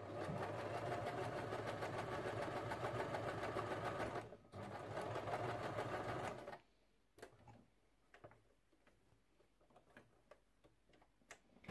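Domestic electric sewing machine stitching cotton fabric layered with thin synthetic batting. It runs steadily for about four seconds, stops briefly, and runs about two seconds more. It then stops, leaving only a few faint clicks of fabric handling.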